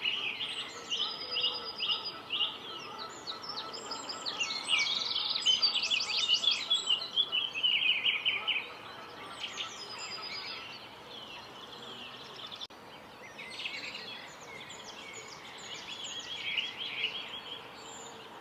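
Several small birds chirping and trilling at once, in fast runs of high notes that overlap. The calling thins out about halfway through, then picks up again.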